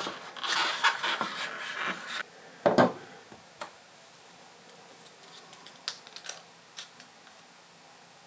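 Product packaging being opened and handled: scratchy rustling for about two seconds, a sharp knock a little under three seconds in, then a few light clicks.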